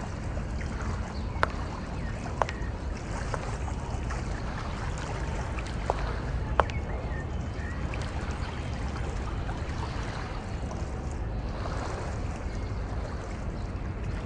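Steady low rumble of outdoor ambience with a few sharp clicks or taps at irregular moments, the clearest about a second and a half, two and a half, six and six and a half seconds in.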